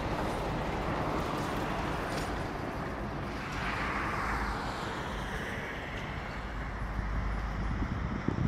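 Street traffic: a road vehicle passing, its tyre hiss swelling and fading about four seconds in, over a steady low rumble.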